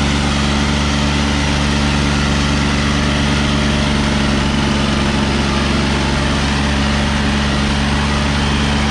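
John Deere 5045 tractor's turbocharged diesel engine running steadily, its pitch holding constant.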